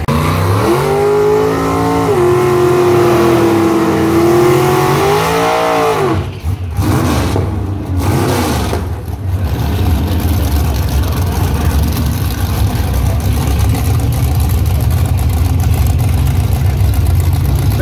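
Drag car engine revving up and held at high revs for about four seconds, flaring once more and cutting back sharply about six seconds in. After a couple of short throttle changes it settles into a loud, rough low idle.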